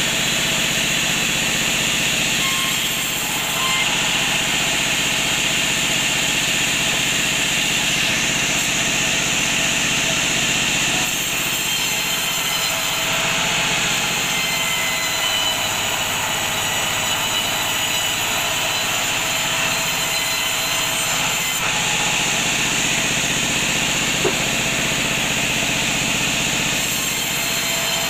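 Large vertical bandsaw running and cutting lengthwise through a teak log, a steady whine of blade and machine over the rasp of the cut. Its tone shifts a couple of times as the log is pushed through.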